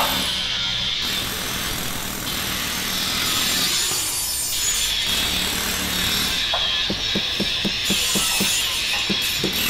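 Angle grinder cutting through the car body's sheet-metal pinch weld: a steady high whine that briefly drops away in the middle. In the last few seconds a run of short low knocks comes about four a second.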